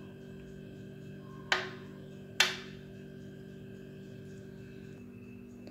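Soft background music of sustained, unchanging tones, with two sharp knocks a little under a second apart, each ringing briefly.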